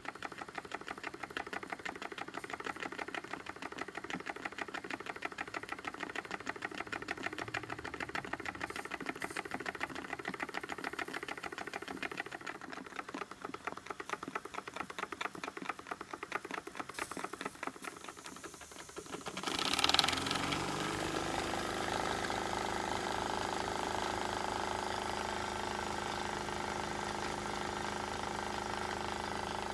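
PM Research No. 3 model steam engine running on steam from its boiler, with a rapid, even clatter of beats. About two-thirds of the way through, a sudden loud burst gives way to a steady hiss with a held hum.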